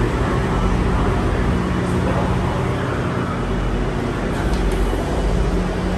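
Steady low rumble and hum of train-station ambience, as of ventilation or idling train machinery, with a few faint ticks.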